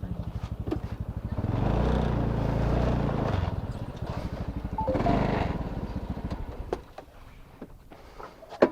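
Motorcycle engine running with a fast, even pulse, rising in level twice as it is revved or accelerates, then dying away about seven seconds in. A single sharp click comes near the end.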